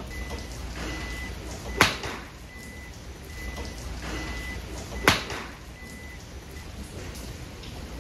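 Golf club striking the ball off a driving-range mat with a sharp, crisp crack, twice about three seconds apart, each hit preceded by a brief swish of the swing. A third strike lands right at the end.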